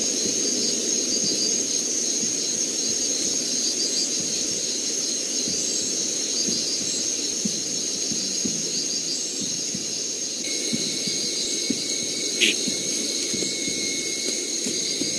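Tropical forest at night: a steady, high insect chorus over a low background rumble, with a second steady high note joining about ten seconds in.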